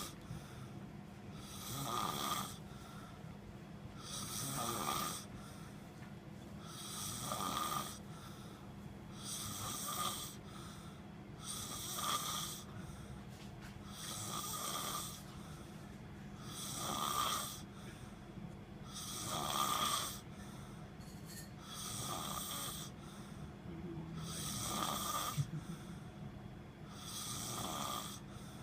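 Domestic cat snoring in deep sleep, a raspy snore with each breath about every two and a half seconds.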